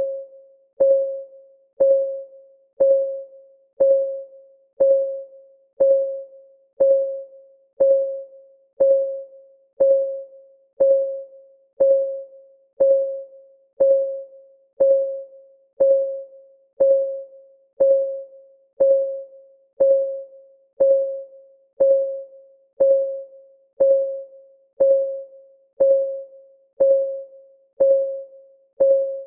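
Clock ticking sound, steady at about one tick a second. Each tick is a sharp click that rings briefly on one mid-pitched tone before dying away.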